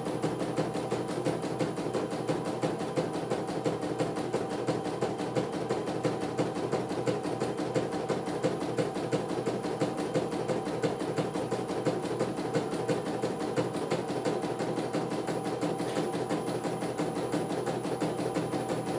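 CNY E900 computerized embroidery machine stitching a design: the needle runs in a rapid, steady, even clatter as the hoop carriage steps the fabric along.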